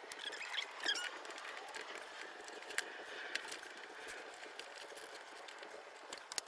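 Faint, scattered clicks, light knocks and short squeaks of hands and tools working parts loose in a car's engine bay.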